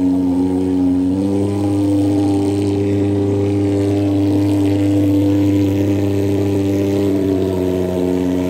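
Handheld thermal mosquito fogger, a pulse-jet engine, running with a loud, steady drone while it pumps out insecticide fog. Its pitch shifts slightly about a second in and again near the end.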